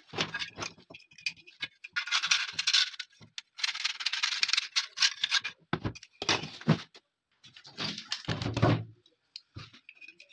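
Metal AK magazine parts being handled on a wooden workbench: bursts of rattling and scraping, sharp clicks, and a couple of heavier knocks as parts are set down, the last one about eight seconds in.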